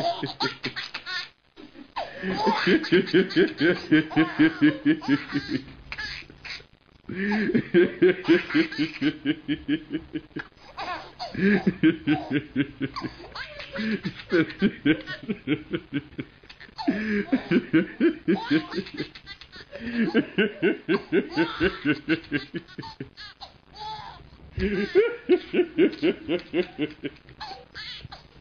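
A man laughing hard in repeated bouts of quick, high-pitched 'ha' pulses, several a second, each bout a few seconds long with short gasping breaks between.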